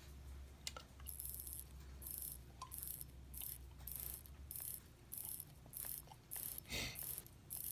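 Faint, rapid ratcheting clicks, about three a second, from a Seiko automatic watch movement being hand-wound at the crown: the click working over the ratchet wheel as the mainspring winds, showing that the movement does hand-wind. A soft handling knock comes near the end.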